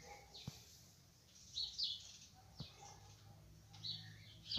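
Faint short, high bird chirps, a few of them in pairs, with a couple of soft clicks in between.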